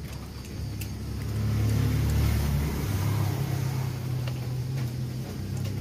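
A motor vehicle's engine running as a low hum, growing louder about a second and a half in, then holding steady.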